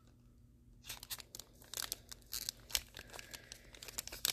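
Foil wrapper of a trading card pack crinkling and tearing as it is pulled open by hand, in irregular crackles that start about a second in.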